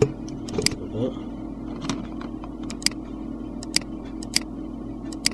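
Computer mouse button clicking about eight times, sharp single and paired clicks, over a steady low electrical hum.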